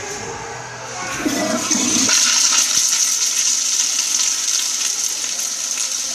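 Kohler toilet flushing: a loud rush of water that builds over the first two seconds and then keeps going steadily.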